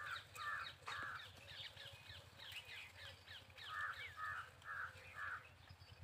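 A crow cawing: three harsh caws at the start, then four more a few seconds later, over quick high chirping of small birds.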